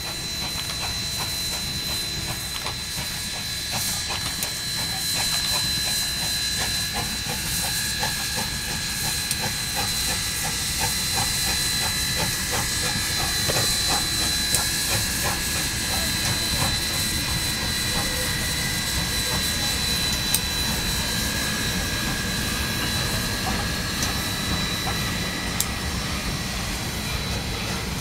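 Restored 4-6-2 Pacific steam locomotive running past with its train: a steady hiss of steam over the low rumble of the moving train, with scattered light clicks from the wheels. It grows a little louder after a few seconds.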